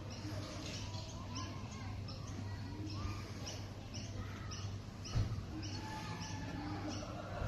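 Birds calling, short high chirps repeating about twice a second, with one dull thump a little past halfway.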